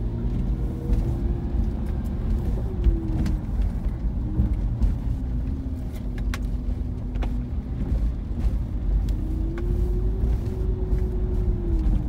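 A car driving slowly, heard from inside the cabin: a steady low road rumble, with the engine's hum rising and falling in pitch as the car speeds up and eases off.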